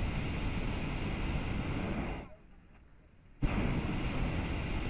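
Hot-air balloon's propane burner firing in blasts: a steady rushing blast cuts off about two seconds in, and after a second's pause the burner fires again with a sudden start.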